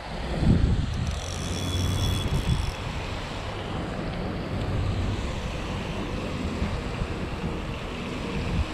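Wind buffeting the microphone in uneven gusts, strongest in the first few seconds, over a steady rushing hiss of water.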